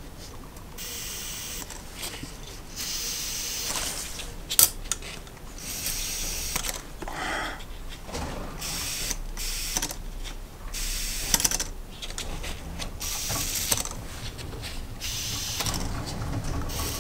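Breath blown by mouth through the vent tubes of a Honda CB750 SOHC four-carburettor bank: a series of hissing puffs of air, each about a second long, rushing through the vent passages and out to atmosphere, the sign that the vents are clear. A few sharp clicks of the carb parts being handled come in between.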